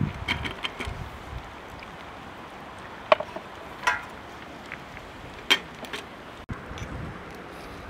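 A few separate, sharp clinks of glass as a glass teapot and small tea glasses are handled on a wooden tray, some with a brief ring, over a steady background hiss.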